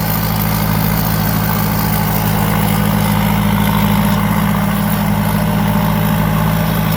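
Thai Seng 'Super Jiw' combine harvester's 165-horsepower four-cylinder turbo diesel engine running steadily at a constant speed.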